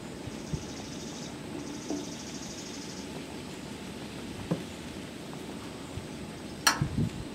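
A metal spoon clicks lightly against a stainless steel pan a few times, with one sharp clink near the end. A high-pitched buzzing trill sounds twice in the first three seconds.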